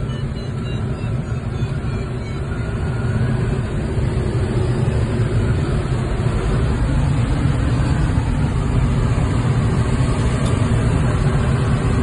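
Steady rush of air over a glider's canopy, heard from inside the cockpit in flight. The low noise grows slightly louder after the first couple of seconds.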